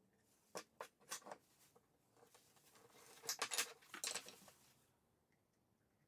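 Light wooden clicks and knocks as small turned oak balusters are handled and set into glued holes in wooden rails: a few sharp taps in the first second or so, then a denser run of louder knocks about halfway through.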